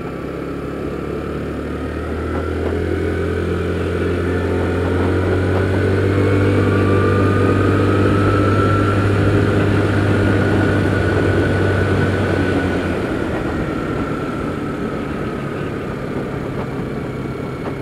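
Kymco Super 8 150cc scooter's single-cylinder four-stroke engine running while riding, with a whine that rises and then falls in pitch. It builds up over the first few seconds and eases off after about twelve seconds.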